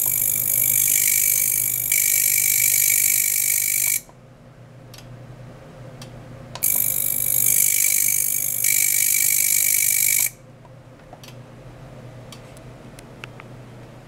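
Ultrasonic probe in a water-filled jar, driven by a function generator, giving a loud hiss with a steady high whine, switched on twice for about four seconds each. Each burst shifts slightly partway through, and a low hum continues in between.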